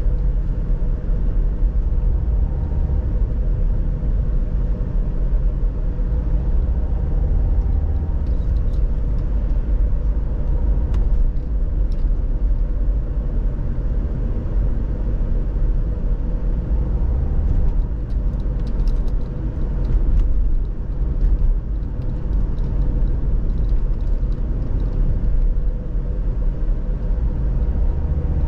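A car driving: steady low engine and road rumble, with a steady faint hum and a few faint ticks.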